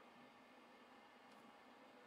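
Near silence: faint room tone, with one faint tick just past halfway.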